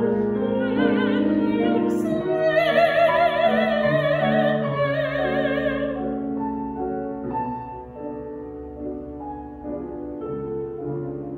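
A woman singing in classical style with a wide vibrato through a face mask, accompanied by a grand piano. Her voice stops about six seconds in and the piano plays on alone, more softly.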